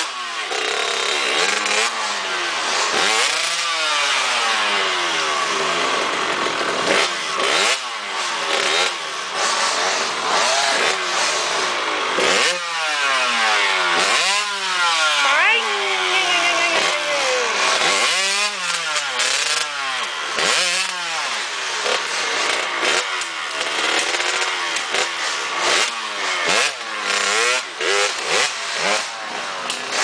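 Two-stroke dirt bike engine revved hard over and over, its pitch climbing and dropping back with each burst of throttle as the bike is worked up over rocks and roots; the blips get shorter and choppier in the last third.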